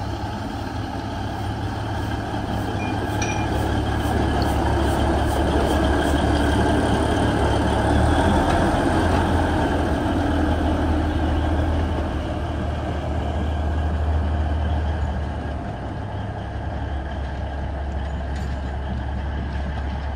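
Alishan Forest Railway diesel locomotive DL43 running light along the track. The engine's steady drone grows louder as it passes close, about eight seconds in, then drops back as it moves away.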